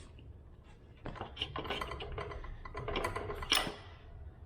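Irregular metallic clicking and rattling as the freed front wheel, with its brake discs and axle spacers, is worked out of a Yamaha Ténéré 700's fork. It begins about a second in and is loudest near the end.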